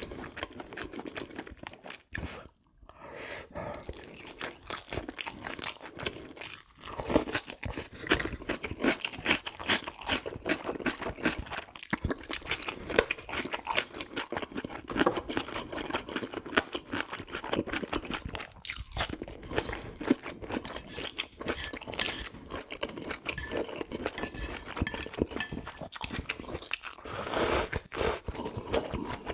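Close-miked chewing of food, with crisp crunches and wet mouth clicks coming quickly and without a break.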